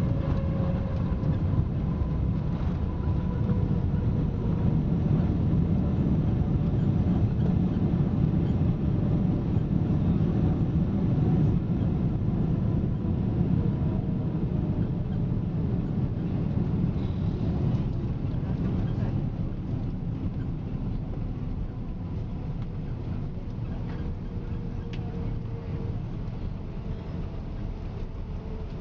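Cabin noise of a Boeing 777-200 rolling out on the runway after touchdown with its spoilers up: a loud low rumble of wheels and engines that slowly fades as the airliner decelerates. Faint engine tones fall in pitch through the first dozen seconds as the engines spool down.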